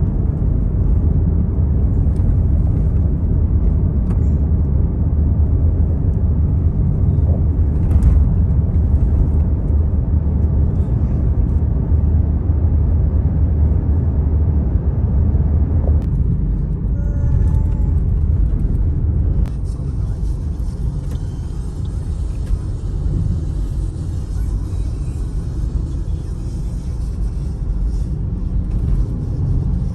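Steady low road rumble inside a moving car. About two-thirds of the way through, the sound changes: the rumble drops a little and a high hiss comes in.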